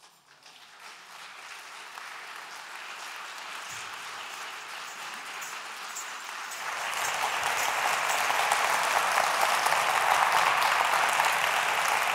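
Audience applauding, starting faint and building, then swelling louder about halfway through.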